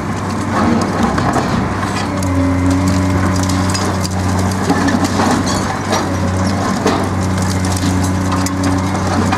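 Hydraulic demolition shears of a CAT 385C high-reach excavator crushing a reinforced-concrete floor edge, with a dense run of cracking and crunching as concrete breaks and debris falls. A steady diesel engine drone runs beneath.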